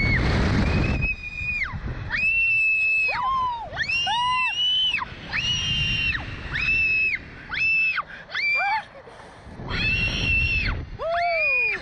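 Riders on a Slingshot ride screaming over and over, high-pitched cries of about a second each, sometimes two voices at once. Bursts of wind noise rush over the microphone as the capsule swings.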